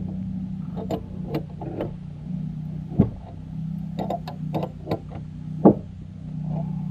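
Scattered metallic clicks and knocks of hand tools working a gear puller fitted to a go-kart engine's clutch, with two sharper knocks about three seconds in and near the end, over a steady low hum.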